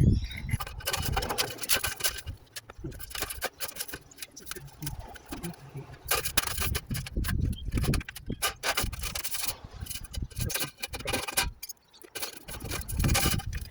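Colorbond steel sheet for a chimney tray being handled, with irregular metallic scraping and rattling.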